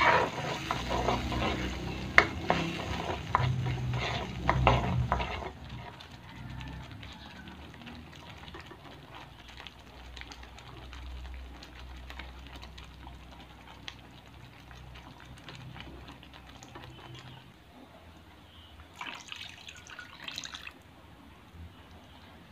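A metal spatula stirs and scrapes a chili spice paste frying in oil in a wok, with a couple of sharp clacks against the pan in the first few seconds. After that it settles to a quieter, steady sizzling and bubbling as the paste cooks, with a short burst of sound near the end.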